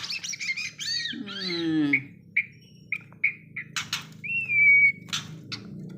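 Juvenile white-rumped shama calling: a harsh call sliding down in pitch about a second in, then a run of short chirps and one long whistled note about four seconds in.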